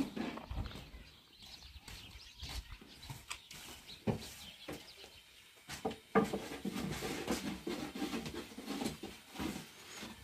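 Irregular knocks and rubbing of a thin wooden rolling pin rolling out flatbread dough on a round wooden board, mixed with footsteps on a hard floor; the knocking gets busier about six seconds in.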